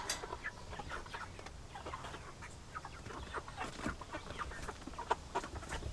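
A flock of meat chickens (broilers) clucking quietly, many short scattered calls overlapping.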